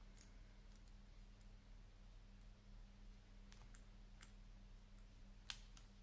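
Faint, scattered clicks of a combination padlock's number wheels being turned while the shackle is pulled under tension, then a sharper click about five and a half seconds in as the shackle springs open.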